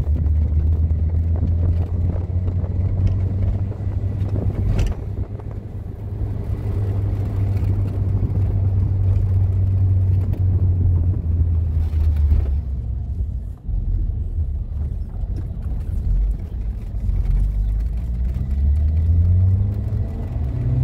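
Car on the move: a steady, loud low engine and road rumble, with the engine note rising as it speeds up near the end.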